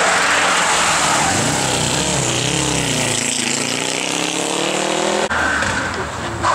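Rally car engine running hard, its pitch falling for a couple of seconds and then climbing again as it accelerates, over a steady rushing noise. An abrupt cut about five seconds in switches to another engine.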